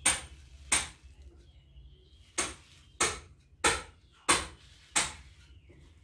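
Seven sharp knocks, irregularly spaced about half a second to a second and a half apart, each dying away quickly.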